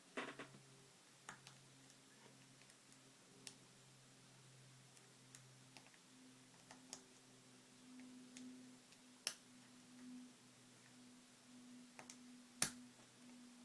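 Faint, scattered clicks of a single pin pick and tension wrench working the pin stacks of a Wilson Bohannan five-pin padlock, a few sharper clicks among them, the sharpest near the end. A faint steady low hum sits underneath.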